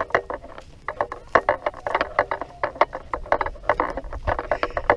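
Irregular rattling clicks, several a second, from someone walking with a camera: footsteps on dry ground and loose gear knocking.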